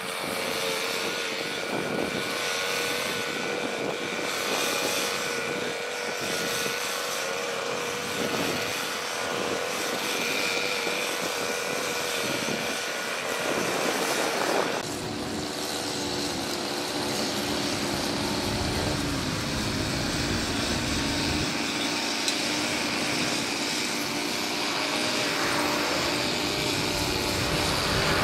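Jet airliner engines heard from beside the runway. First a distant jet climbs away after take-off with a steady whine. About halfway through it changes abruptly to a Boeing 737's engines running as it rolls along the runway, lower and more rumbling.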